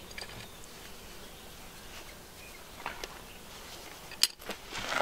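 An adjustable wrench working at a tight brass fitting on an air-brake relay valve, mostly quiet, with a faint click about three seconds in and one sharp metallic click a little after four seconds.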